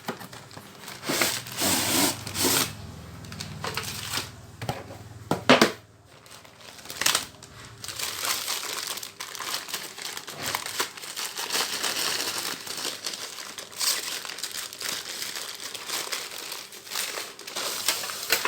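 Packaging crinkling and rustling as ceiling-fan blades are unwrapped by hand. It is irregular, with a few sharper handling knocks in the first half and steadier crinkling later.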